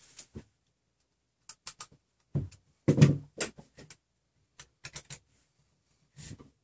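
Hands handling a plastic 3D-printer extruder assembly: scattered light clicks and knocks of plastic parts and hardware. Two louder thumps come about two and a half and three seconds in, as the extruder is set down on the bench.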